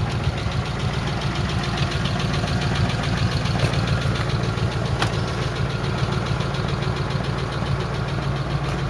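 A 1946 Ford pickup's original flathead V8 idling steadily, with one sharp click about five seconds in.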